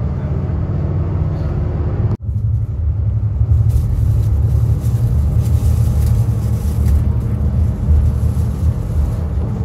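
A bus on the move, heard from inside the cabin: a steady low drone of engine and tyre rumble. It cuts out for an instant about two seconds in, then carries on.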